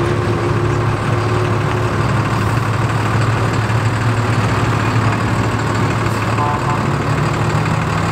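Engine of a heavy, big-rig-style pickup truck running at low revs as it slowly tows a large enclosed trailer past: a steady low drone.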